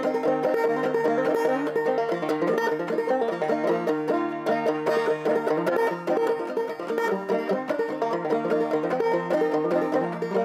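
Banjo music: a tune of quickly picked notes played steadily.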